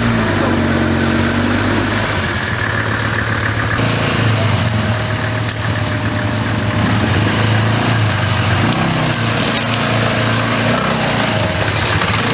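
A vehicle engine running steadily at low revs, with a few light clicks over it.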